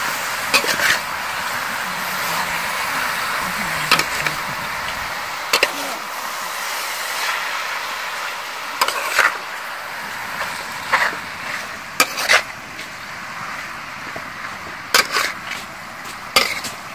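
Snail meat and chillies sizzling steadily as they stir-fry in a steel wok. A metal spatula scrapes and clanks against the pan about a dozen times at irregular moments as the food is turned.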